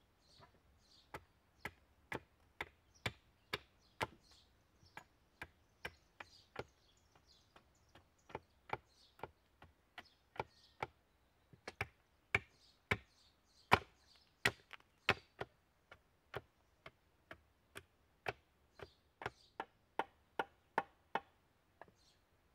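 Hatchet chopping into wood on a stump chopping block: a long run of sharp strikes, about two a second, some much louder than others.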